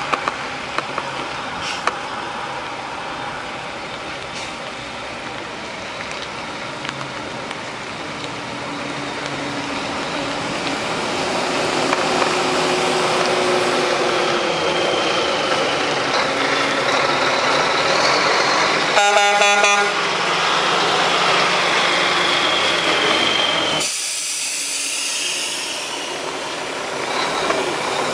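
1992 Mack RD600 dump truck's Mack EM6-300 six-cylinder diesel engine running as the truck drives, growing louder as it comes closer. A truck horn sounds once for about a second, about two-thirds of the way in.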